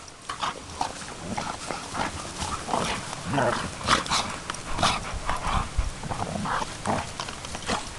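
Two dogs play-wrestling: a run of short, rough dog vocal noises and scuffles, irregular and several a second.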